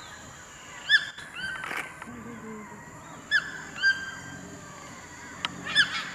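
Scarlet macaws calling: several loud, short squawks a second or two apart, each a quick up-and-down note, some trailing into a held tone.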